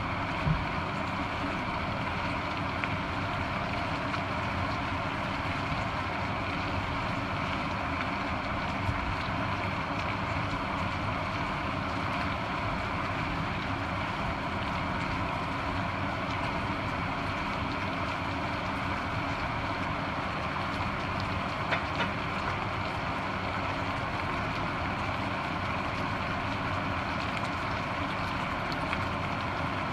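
A steady, even drone, with a few sharp clicks of metal tongs knocking against the frying pan as the pasta is tossed.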